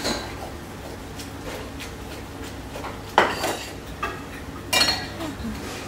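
Metal tongs clinking and scraping against a stainless steel pan while spaghetti is lifted and turned in it, with a few sharp clinks in the second half, over a steady low hum.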